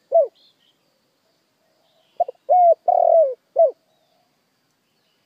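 Spotted dove cooing: one note closing a phrase at the start, then after a pause a new phrase about two seconds in, with two quick lead-in notes followed by three coos, short, long and short. It is a decoy call meant to provoke and draw in wild doves.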